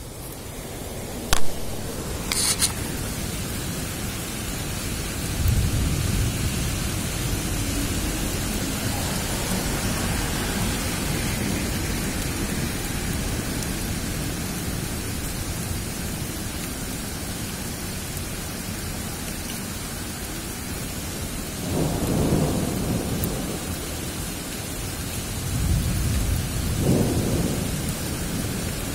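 Thunderstorm: a steady hiss of rain with low rumbles of thunder, one about five seconds in and two more near the end. Two short sharp cracks sound in the first few seconds.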